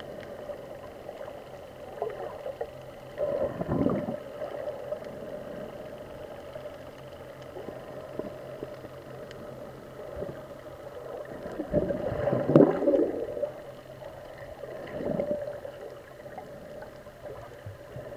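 Muffled underwater sound picked up by an action camera in its waterproof housing: a steady low drone with gurgling water noise that swells up three times, loudest about two-thirds of the way through.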